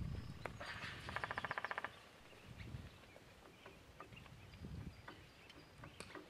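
A single fast, rattling animal call lasting about a second, near the start, with faint low thuds around it.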